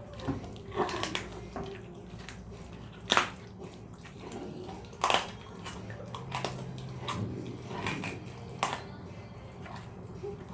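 A cougar chewing raw chicken leg quarters, crunching through the bones, with irregular sharp cracks; the two loudest come about three and five seconds in.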